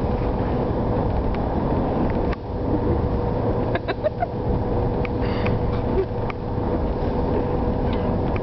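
Car cabin noise: a steady low rumble from the road and engine with a steady hum, and a few faint small clicks.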